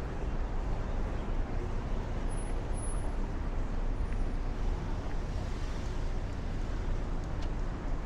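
Steady city street ambience: a continuous low rumble of road traffic.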